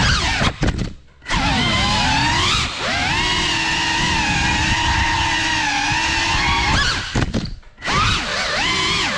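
FPV quadcopter's brushless motors and propellers whining, the pitch rising and falling with throttle. The whine drops away abruptly twice, about a second in and again near the end, then comes back.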